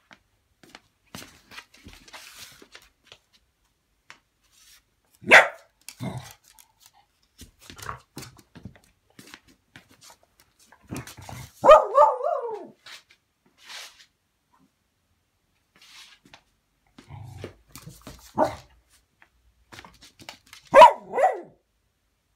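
A corgi barking about four times, a few seconds apart; the bark around the middle is longer and drawn out.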